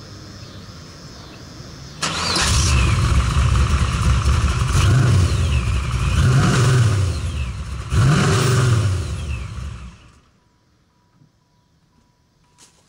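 Supercharged LT1 V8 (Vortech V1) in a Z28 Camaro coming in suddenly about two seconds in and revved in several blips, the supercharger whine falling and the blow-off valve hissing as the throttle closes after each. It dies away about ten seconds in, followed by a few faint clicks.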